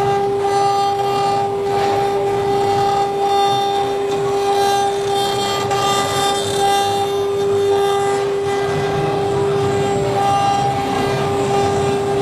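Several spindles of a multi-head CNC woodworking router running together with a steady, high-pitched whine. Beneath it is a rougher, fluctuating noise from the machine at work engraving wood.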